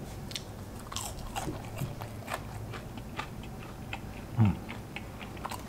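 Someone chewing a crispy fried chicken nugget close to the microphone: a run of small, irregular crunches. About four and a half seconds in there is one brief, falling hum.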